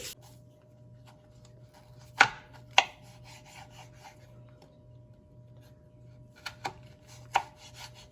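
A kitchen knife cutting potatoes on a cutting board: five sharp knocks of the blade hitting the board, two early and three close together near the end, with faint scraping in between.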